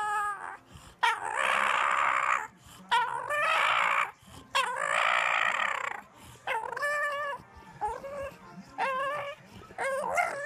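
English bulldog puppy lying on its back giving a string of whining howls: three long, loud ones in the first six seconds, then four shorter, quieter whines about a second apart.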